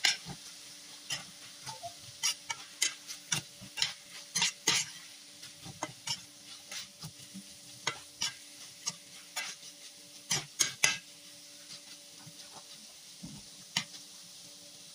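Stir-frying bitter gourd with minced meat and spring onions in a stainless steel pan. A cooking utensil scrapes and clicks irregularly against the pan over a steady sizzle. The strokes come thick for most of the time and thin out toward the end.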